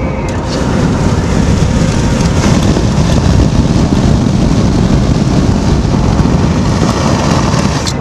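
Wind rushing through an open car window at highway speed, with tyre and road noise underneath. It gets louder about half a second in and then stays steady.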